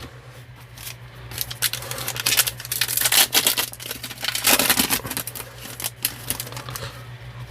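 Trading card pack being opened and its cards handled: quick crinkling and tearing of the wrapper and cards flicking against each other, in a run of sharp rustles loudest around the middle.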